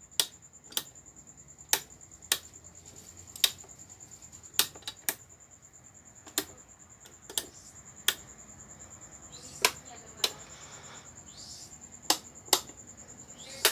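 Wall-mounted rocker light switches being flipped by hand: about sixteen sharp clicks at irregular intervals, with a bank of three-way and four-way switches turning the bulbs on and off.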